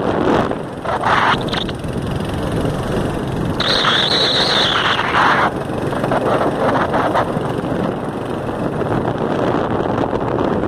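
Wind rushing over the microphone of a moving vehicle, with steady road and engine noise underneath. About four seconds in, a high-pitched sound lasts for about two seconds.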